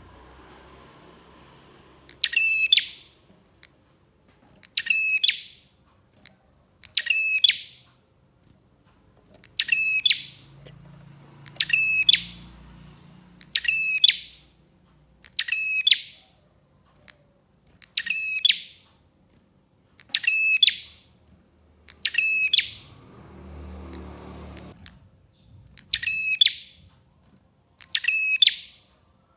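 A prenjak (prinia) calling over and over: a short, sharp, high trilled call about every two seconds, about a dozen times. A low rumble rises under the calls a little past the middle and stops before the last few.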